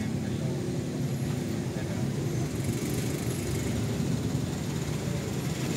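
Steady low rumble of road traffic and a running engine.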